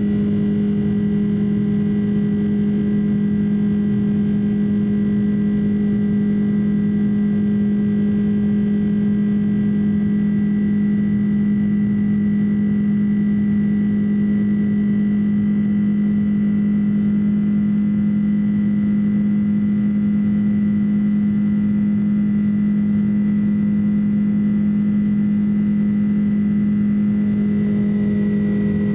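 Boeing 767-300 cabin heard from a window seat by the wing: the turbofan engines drone steadily at climb power just after takeoff, with a strong low hum and a faint high whine over the rushing noise.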